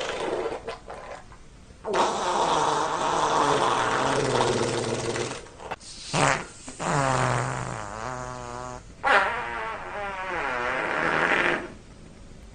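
Fart sound effects: a string of about four pitched, rasping farts, most of them long and drawn out with a wavering pitch, and one short one about six seconds in.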